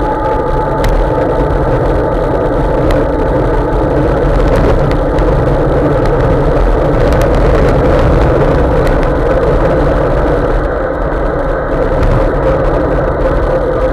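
Steady wind roar on a bike-mounted camera's microphone, with the hiss of bicycle tyres on wet tarmac while riding, and a few faint ticks.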